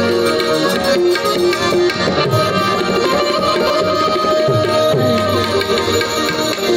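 Tabla playing in an instrumental passage of a Gujarati folk-devotional bhajan, its bass drum giving strokes that bend downward in pitch, over steady held notes from a harmonium.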